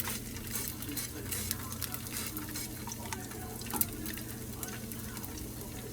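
Eggs frying in oil in a pan, sizzling with irregular crackles and spatters over a steady low hum.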